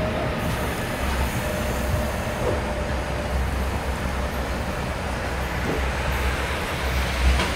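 Passenger train rolling slowly over the rails, a steady rumble heard from on board, with a faint thin wheel squeal in the first few seconds.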